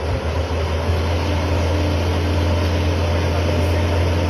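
Heavy diesel truck engine running steadily at an unchanging speed, a deep low drone.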